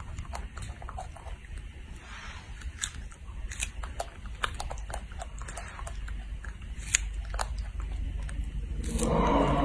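Baby macaque chewing and biting a strawberry: many short wet mouth clicks and smacks at an uneven pace over a steady low hum. A pitched sound comes in near the end.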